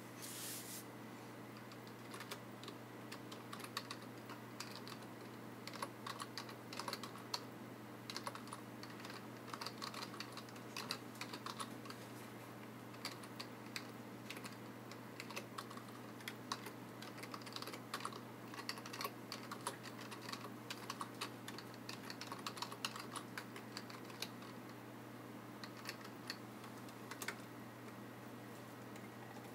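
Typing on a computer keyboard: rapid key clicks in runs with short pauses, over a steady low hum.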